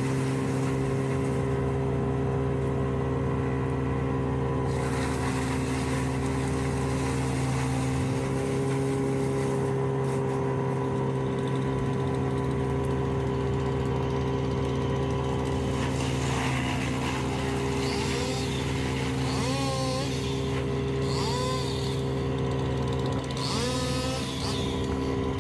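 Bandit Intimidator 12XP wood chipper running steadily with an even engine hum. In the last several seconds, short wavering, squeal-like tones come and go over the hum.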